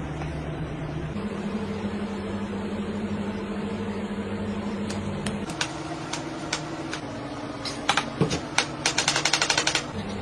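Kitchen knife strokes clicking on a plastic cutting board: a few single clicks around the middle, then a quick run of clicks near the end, over a steady mechanical hum.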